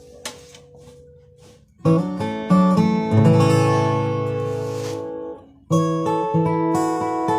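All-solid-wood acoustic guitar played: after a faint ringing note, a strummed chord about two seconds in rings out and slowly fades, then a steady rhythmic chord pattern starts near the end.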